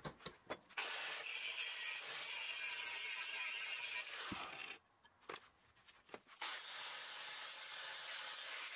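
Angle grinder grinding the edge of a steel bracket clamped in a vise. A few light metal clicks, then about four seconds of steady grinding, a pause of about a second and a half with a couple of clicks, and then steady grinding again.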